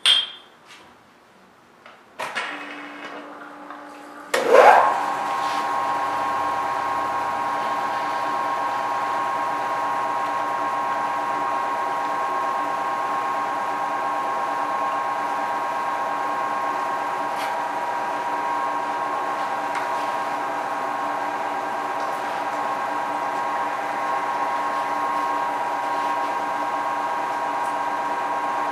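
Vertical milling machine drilling a through hole in a muzzle-brake blank: a sharp metallic knock as the part is set in the vise, a motor starting about two seconds in, then the spindle coming up to speed with a brief rising whine and settling into a steady hum of several tones mixed with the hiss of flood coolant.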